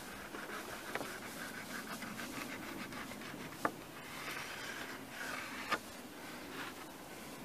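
Knife blade scoring a cut line across a softwood board: faint scratching and rubbing of steel on wood, with a few light clicks.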